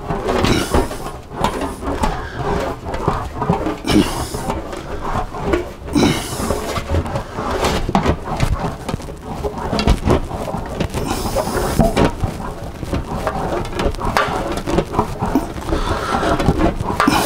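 An English wheel rolling a sheet-metal Austin-Healey rear guard panel back and forth: a continuous squeaky rolling and scraping noise with rougher swells every few seconds. The panel is being wheeled with light pressure to smooth it off.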